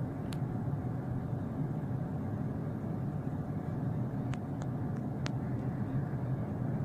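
Steady jet-engine noise of an Embraer 145 regional jet, its rear-mounted Rolls-Royce AE 3007 turbofans running at an even level, with a few faint short clicks.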